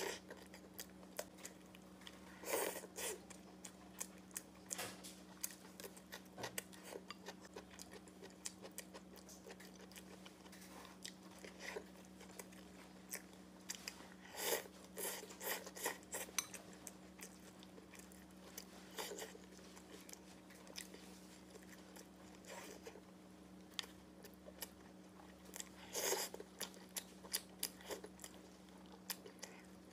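A person eating close to the microphone: chewing, biting and wet mouth smacks, with scattered small clicks. The louder clusters come a few seconds in, in the middle, and near the end, over a faint steady hum.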